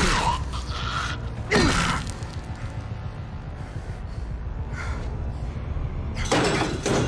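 Sharp gasps and strained breaths of a violent struggle, one near the start, one about a second and a half in and one near the end, over a steady low drone of dramatic score.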